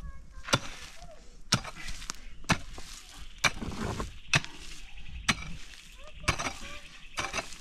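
A pick striking hard, stony ground while digging: eight heavy blows at about one a second, with smaller knocks between them.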